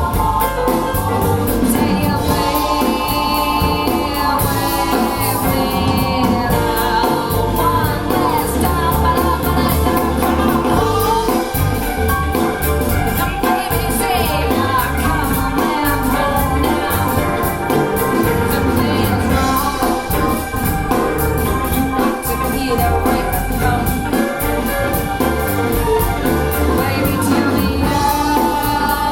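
Gospel-style music with singing and choir, played back through Bowers & Wilkins 607 bookshelf speakers.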